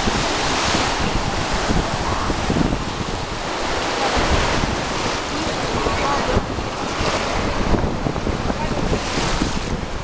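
Small sea waves breaking and washing up a sandy shore, with wind buffeting the microphone and faint voices of people on the beach.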